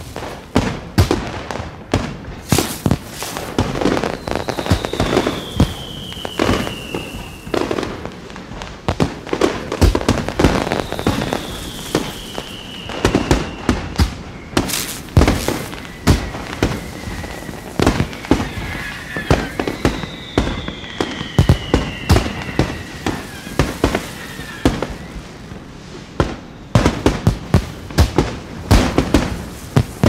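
Aerial fireworks display: a dense run of sharp bangs and crackling bursts, with three high whistles that each fall in pitch.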